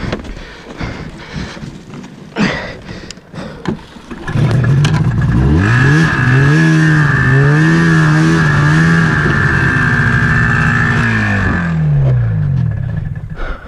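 Snowmobile engine running and revving as the sled drives off, its pitch wavering up and down with a steady high whine over it, then falling away near the end. Scattered knocks and clatter come before the engine climbs.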